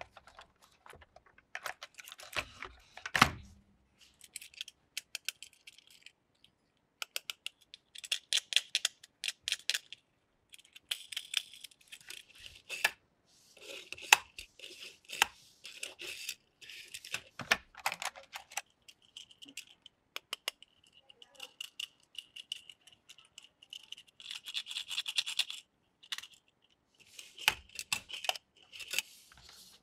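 Handling of a plastic toy car-carrier case: its clear plastic lid clicking open on its clips, and die-cast toy cars rattling and clacking as they are pulled from the plastic slots and set down on a table. Irregular clicks and short scraping bursts, with a thin steady high whine for a few seconds past the middle.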